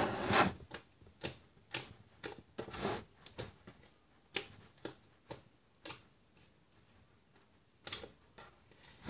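Sticky homemade slime being pressed and pulled by hand on a table, giving a series of short, irregular clicks and pops. The clicks thin out past the middle, stop for about two seconds, and return louder near the end.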